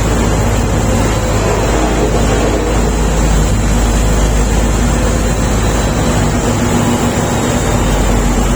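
Shantui SD32 bulldozer's diesel engine running steadily at a constant pitch, with a low hum under a broad mechanical noise.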